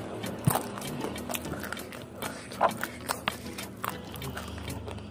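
Close-up mouth sounds of eating fried chicken head: chewing, lip-smacking and sucking meat from small bones, heard as irregular wet clicks and smacks, with a few sharper ones about half a second in and around the middle.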